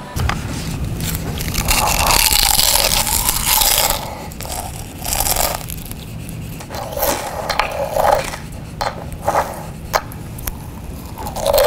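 Chewing and crunching of food amplified through a handheld megaphone, loud, in a string of irregular bites.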